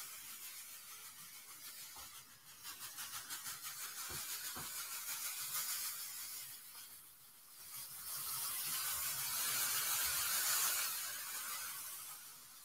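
Metallic foil tinsel pom-poms being shaken, a dense, crackly rustle. It pulses a few times a second in the first half, grows louder for a few seconds, then fades out near the end.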